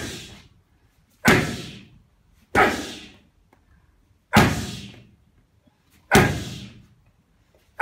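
Boxing punches landing on hand-held focus pads: a regular series of sharp smacks, about one every one and a half seconds, each ringing briefly in the room. The pad-holder is feeding the pads into each punch.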